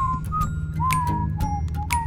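Background music with a whistled melody over a steady low accompaniment and light, sharp percussion hits.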